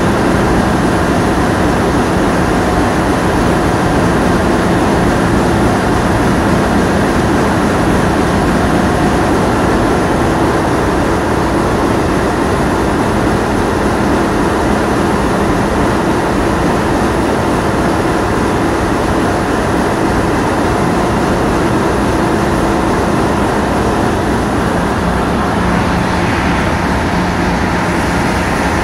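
A boat's engine running steadily under way, with a constant low hum, mixed with the rush of wind and water.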